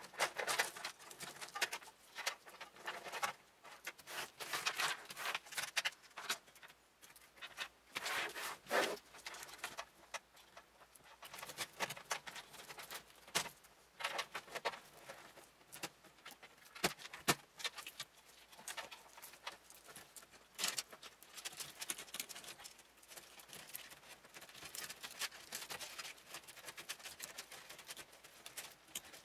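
Irregular rustling, scraping and clicking of computer cables being pulled, routed and tucked through a PC case during cable management.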